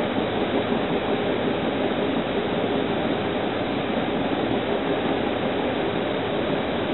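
Steady running noise of a moving Amtrak passenger train heard from inside the car: an even rumble and hiss of the wheels on the rails, with no distinct clicks.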